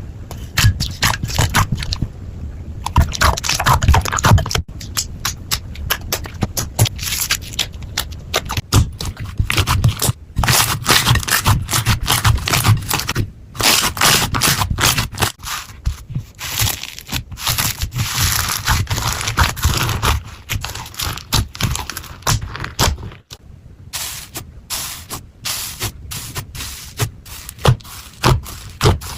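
Slime being worked by hand close to the microphone, giving a dense, continuous run of crackling, clicking and scraping sounds with a few brief pauses.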